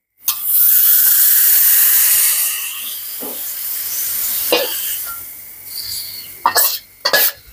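Loud sizzling hiss from the hot wok and curry sauce, fading over several seconds. Near the end, a quick run of short scrapes as a metal spatula drags the stir-fry across the carbon-steel wok onto a plate.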